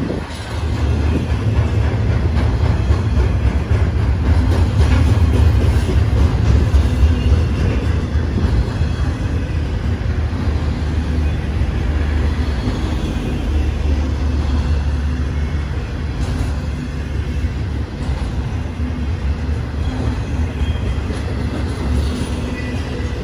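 Intermodal freight train cars, double-stacked well cars loaded with trailers and containers, rolling past: a steady, loud, low rumble of steel wheels on the rails, with a few faint clacks.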